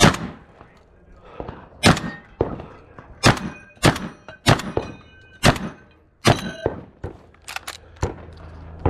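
A string of about ten pistol shots fired at steel targets, spaced unevenly about a second apart with one quick pair near the end. Several shots are followed by a brief high ring of struck steel plate.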